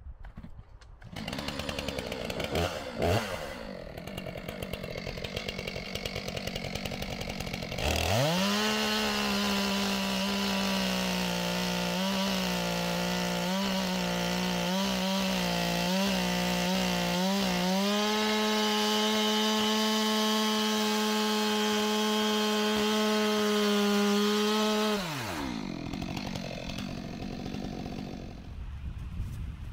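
Gas chainsaw, quieter at first, revved to full throttle about eight seconds in and cutting through a log. Its pitch wavers as the chain loads up in the cut, then it runs steady and a little higher. It drops back down in pitch a few seconds before the end.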